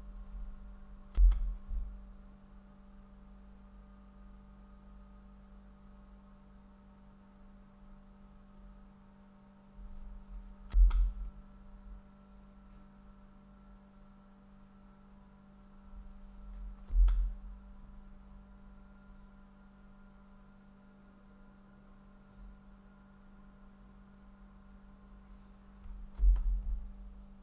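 Snooker balls struck on four shots, several seconds apart, each a sharp click with a dull knock just after, over a steady electrical hum.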